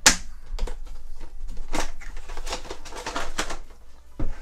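Cardboard toy packaging being opened and a clear plastic blister tray slid out of it: a sharp crack right at the start, then irregular crinkling and rustling of plastic against cardboard.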